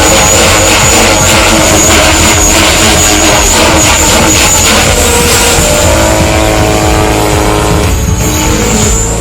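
JR Forza 450 electric radio-controlled helicopter flying 3D aerobatics: a steady high whine over loud rotor noise, the rotor tones shifting in pitch from about six seconds in as the pilot works the collective.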